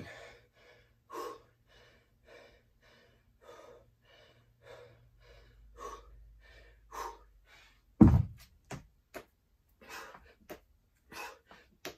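A man breathing hard and fast from exertion, in quick rhythmic gasps. About eight seconds in comes a loud thud as a pair of 25 lb hex dumbbells is set down on the floor, followed by a few light knocks.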